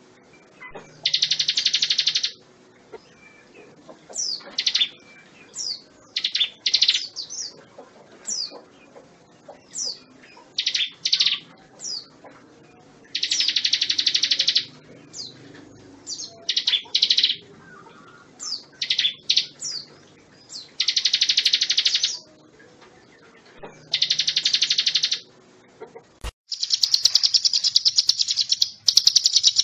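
Ciblek gunung, a prinia, singing. Dense buzzy trills about a second long alternate with quick runs of sharp, sliding whistled notes, over and over. A single click comes near the end, followed by a long trill.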